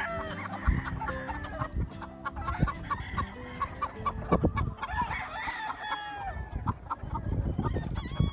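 Many roosters in rows of wire pens clucking and calling over one another, the short calls overlapping throughout.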